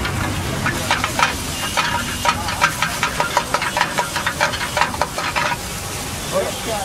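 Metal spatula scraping and clacking against a steel wok as an egg mixture is stirred and fried over a gas flame, with a steady sizzle underneath. The clacks come irregularly, several a second, and die away about five and a half seconds in.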